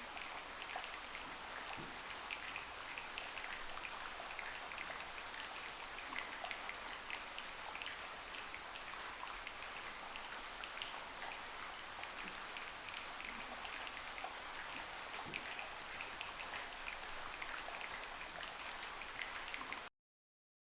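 Steady rain-like patter: many small drop ticks over an even hiss. It cuts off abruptly near the end.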